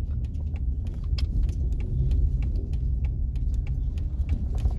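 Minivan driving, heard from inside the cabin: a steady low rumble of engine and road, with frequent small irregular clicks and rattles over it.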